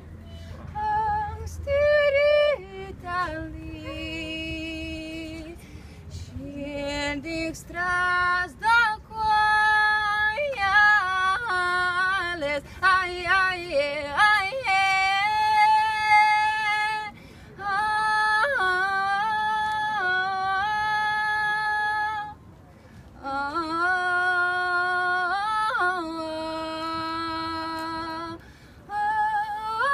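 A woman singing a Lithuanian traditional song solo and unaccompanied, in long held notes with a few short breaks for breath.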